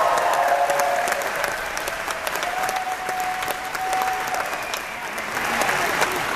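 Crowd applauding, dense clapping with a held cheer partway through; the applause swells again near the end.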